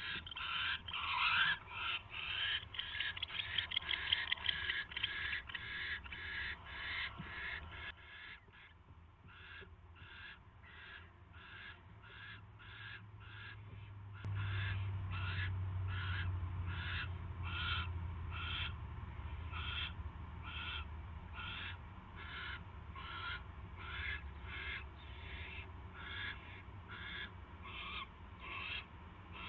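Barn owl giving a long, steady series of short rasping hisses, about two a second and a little slower later on: the snoring begging call of barn owls in the nest box. A low hum runs underneath and grows louder about halfway through.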